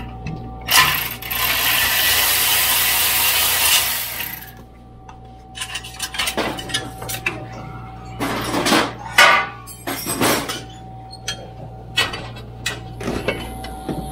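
Metal clinking, knocking and scraping from hand tools and the exhaust being worked loose. A loud rushing hiss starts about a second in and lasts about three seconds, followed by a run of scattered clicks and knocks.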